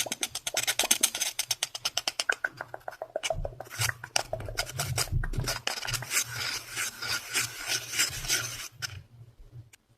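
Fast, rhythmic scratching on a surface close to the microphone, about eight strokes a second, turning into denser, rasping scratching that stops about nine seconds in.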